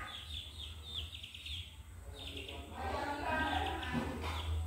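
Young chicks peeping: several runs of quick, high, downward-sliding chirps, over a low steady hum.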